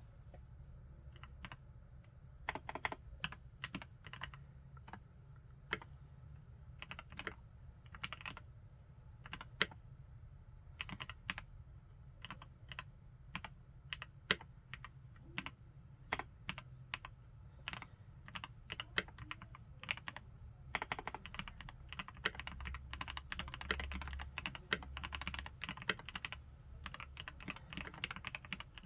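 Epomaker Brick 87 mechanical keyboard with Gateron Pro Yellow linear switches being typed on. At first the keystrokes come singly and in short runs, then about two-thirds of the way through they turn into fast, continuous typing.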